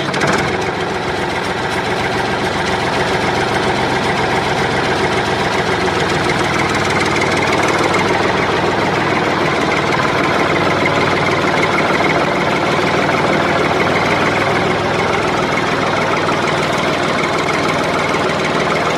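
Tractor engine running steadily at low revs, getting slightly louder over the first several seconds, heard with a miniature Massey Ferguson 260 model tractor as it drives across sand.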